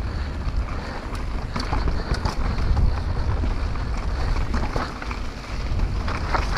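Mountain bike riding fast down a natural dirt singletrack: wind buffeting the helmet camera's microphone, tyres rumbling over the ground, and scattered clicks and rattles from the bike hitting roots and rocks.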